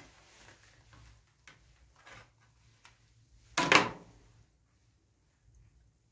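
Handling sounds of a power-supply cable being unplugged from a power strip: a few light clicks and rustles, then one loud clack and scrape a little past halfway as the plug is set down on the wooden workbench.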